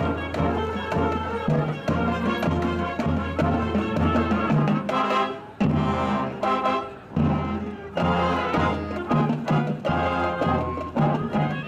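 School marching band playing: brass and percussion ensemble music with a steady beat and sustained brass chords.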